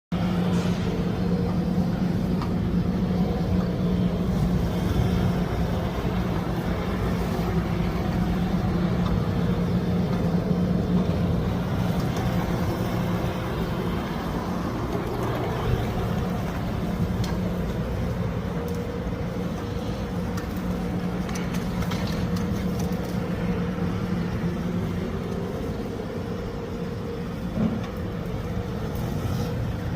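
Road sweeper truck's engine running steadily, a constant low hum with street noise around it.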